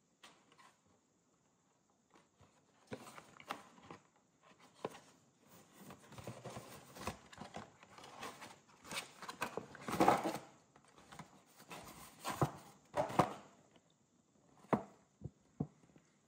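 Stiff paper gift bag being handled and opened: irregular crinkling and rustling of the card paper with light taps, loudest about ten seconds in.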